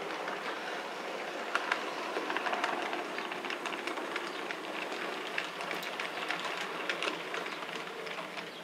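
A model train running along the track: a steady running noise with many light, irregular clicks of the wheels over the rail joints.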